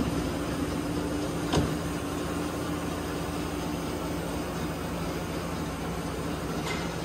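Steady hum of powered machinery in a machine shop, with a low drone, and a single short knock about a second and a half in.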